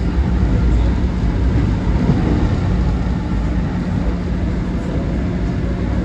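Subway train running, heard from inside the car: a loud, steady rumble with a low hum. It starts and stops abruptly.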